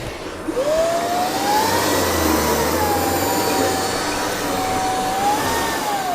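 Vacuum cleaner motor switched on, spinning up with a rising whine, running steadily for about five seconds, then switched off and winding down near the end.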